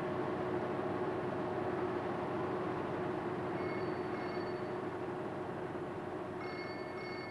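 A telephone ringing in a double ring-ring pattern, starting about halfway through and coming again louder near the end, over a steady droning hiss.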